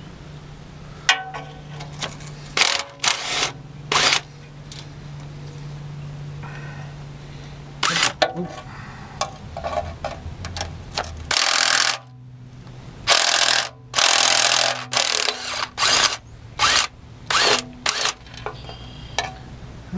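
Impact wrench rattling in a dozen or so short bursts, loosening the oil pan bolts on a Detroit Diesel 6V92 engine. A steady low hum runs underneath.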